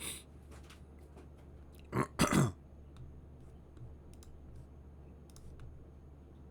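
A short throaty mouth sound from a man about two seconds in, followed by a few faint scattered clicks over a low steady hum.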